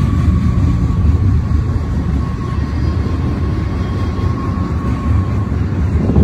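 Double-stack intermodal freight train's well cars rolling past: a heavy, steady low rumble of wheels on rail, with a thin, steady high whine above it.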